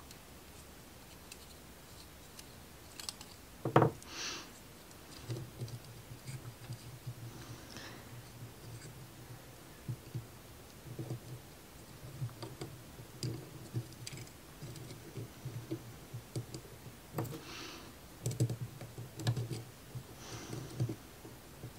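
Small clicks, taps and light rubbing from handling thin laser-cut plywood model parts, with one sharper knock about four seconds in.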